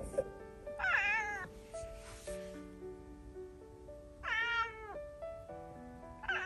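A calico cat meowing: two long, drawn-out meows that rise and fall, about a second in and about four seconds in, with a third starting at the very end. Soft background music with held notes plays underneath.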